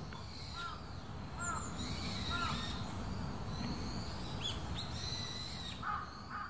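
Wild birds calling: a few short, arched calls about a second apart, with higher chirps from other birds, over a low steady background rumble.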